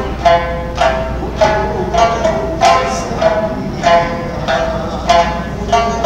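Okinawan sanshin being played: a steady run of plucked notes, each with a sharp attack and a short ringing decay, about three notes every two seconds, in a traditional Okinawan folk tune.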